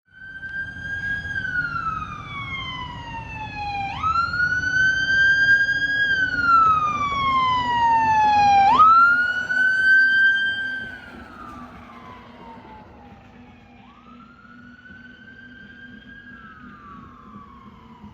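Fire engine siren wailing. Each cycle jumps up quickly in pitch and then slides slowly down, repeating about every four and a half seconds over the low rumble of the truck's engine and road noise. It grows louder to a peak about nine seconds in, drops off sharply around eleven seconds, and carries on fainter.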